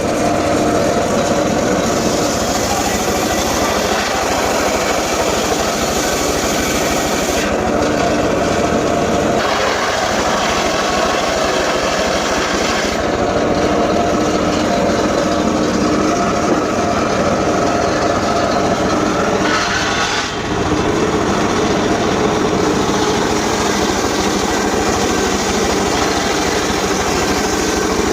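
Engine-powered saw running steadily and cutting gmelina timber, its pitch and the hiss of the cut shifting several times as the load changes.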